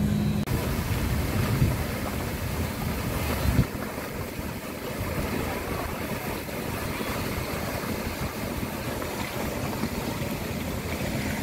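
Steady rushing, splashing water from the Merlion statue's fountain jet pouring into the bay. A low hum cuts off half a second in, and there is a single thump about three and a half seconds in.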